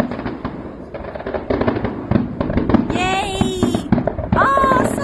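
Fireworks display going off: rapid bangs and crackling in quick succession, with high voices joining in over the second half.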